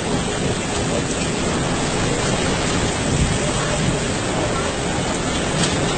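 Heavy wind-driven rain in a tropical cyclone, a steady rushing noise with no let-up.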